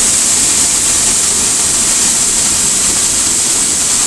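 Waterfall in spate, heard from close to the falling water: a loud, steady rush of heavy water with no let-up.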